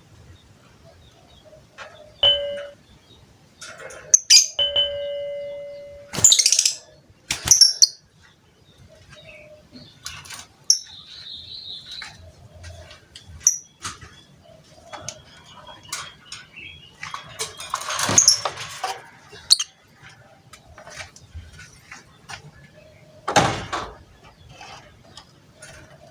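Lovebird giving scattered short, high chirps and clicks, with a few noisy bursts. Two steady beep-like tones sound near the start, the second held for over a second.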